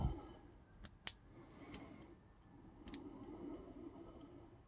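Faint metallic clicks and scraping of a lock pick working the pin stack of a brass CISA padlock under tension, a few sharp ticks as pins are lifted and set.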